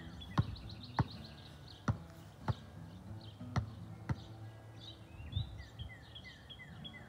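Basketball dribbled on an asphalt court: a series of sharp bounces spaced half a second to a second apart, thinning out after the first two-thirds. Birds chirp steadily in the background.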